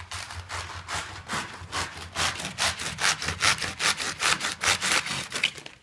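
Knife sawing back and forth through the tough leaves of a globe artichoke to cut off its top, a rasping crunch at about three strokes a second, louder from about two seconds in.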